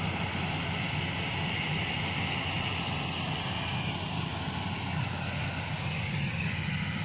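Yanmar rice combine harvester's engine running steadily as it cuts, a constant low drone.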